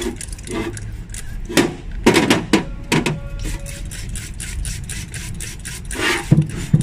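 Trigger spray bottle squirting degreaser onto a sooty EGR pipe flange: a run of short, sharp sprays, several in quick succession about two seconds in and again near the end, over a steady low hum.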